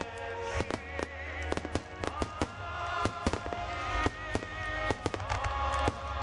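Large No. 10 aerial firework shells bursting in quick, irregular succession, sharp bangs and crackles several times a second, over music with held notes and a steady low rumble.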